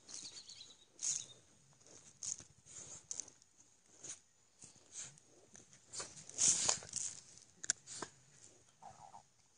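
Claws scratching and scrabbling in dry, crumbly dirt and pebbles as a dog digs, in irregular bursts with a busier flurry past the middle.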